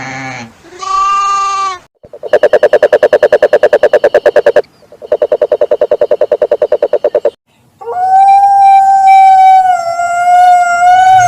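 Animal calls in sequence: a sheep's bleat in the first two seconds, then two rapid, evenly pulsing trills of about two seconds each. From about 8 s in comes a long, steady wolf howl that falls slightly in pitch.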